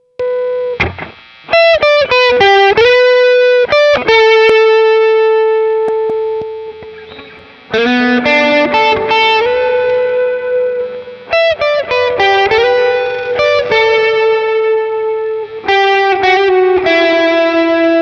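Electric guitar played through a homemade Klon-style overdrive with germanium diodes and a reverb pedal built around a Belton reverb brick, both switched on. It plays lead phrases with string bends, and the held notes ring out with long sustain. There are four phrases, with short gaps between them.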